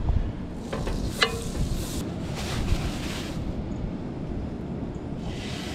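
Wind buffeting the microphone, with surf washing in the background and a brief squeak about a second in.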